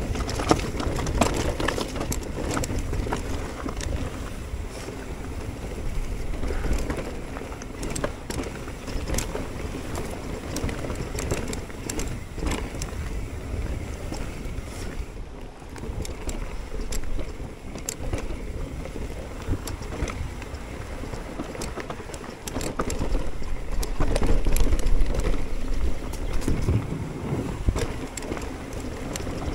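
Mountain bike rolling fast down a rough dirt and stone singletrack: tyre noise over the ground, with the bike rattling and knocking over bumps and wind on the microphone. It gets louder and rougher for a couple of seconds near the end.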